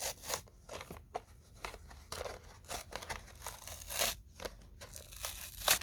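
Plastic and card packaging of a toy car being torn and pried open by hand: a run of irregular short crackles and tears, the loudest about four seconds in and just before the end. The package is stubborn, so rough to unbox.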